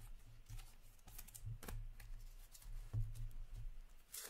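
A stack of hockey trading cards being handled and slid through the hands: light, scattered card-on-card rustles and flicks, with a sharper click near the end, over a low steady hum.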